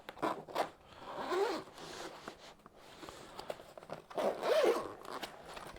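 Zipper of a teleprompter carry case being pulled open in a few strokes, with longer pulls about a second in and again about four seconds in.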